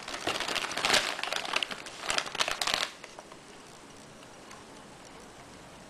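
Clear plastic bag crinkling and rustling as a camera wrapped in it is handled and lifted out of its cardboard packing tray, stopping about three seconds in.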